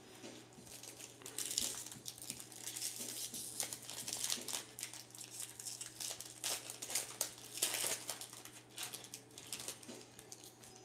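Foil wrapper of a 2023 Bowman Platinum trading-card pack being torn open and crinkled by hand, an irregular crackling that is busiest through the middle and thins out near the end.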